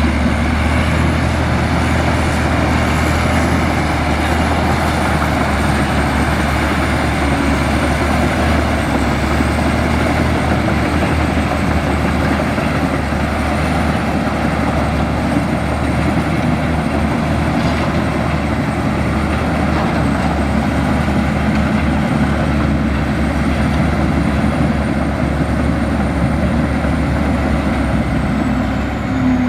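Bulldozer's heavy diesel engine running steadily, with a thin high whine wavering slightly in pitch above it.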